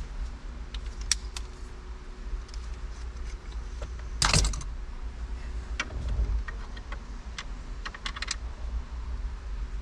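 Scattered light clicks and knocks of plastic interior trim pieces and hand tools being handled during a car interior teardown, with one louder clatter about four seconds in.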